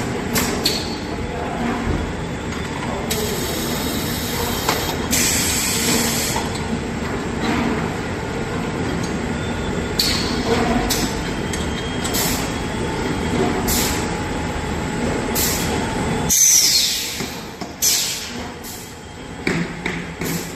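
Paint filling machine running: steady mechanical clatter with repeated short hisses and clicks, dropping off for a moment near the end before picking up again.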